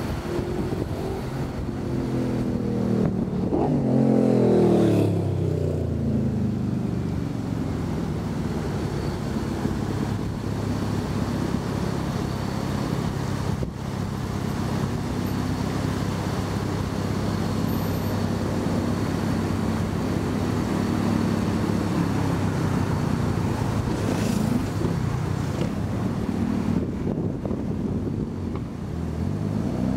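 An airplane taking off: a steady engine roar that swells to its loudest about four seconds in, with tones falling in pitch as it passes, then goes on as a steady roar.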